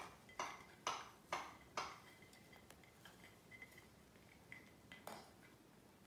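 Faint, sharp clinking taps, about two a second for the first two seconds and one more about five seconds in, from a cockatoo tugging at a hanging toy.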